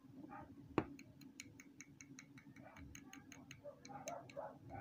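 Ball bearing on a DeWalt angle grinder's armature shaft clicking rapidly and evenly, about six clicks a second after one sharper click, as it is forced round by hand. The bearing is seized with rust and dried-out oil, which is what locked the grinder.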